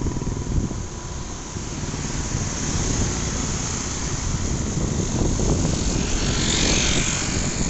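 Motorcycle engine running under steady wind and road rush while riding, with other motorcycles passing close by. A brighter hiss swells about six seconds in.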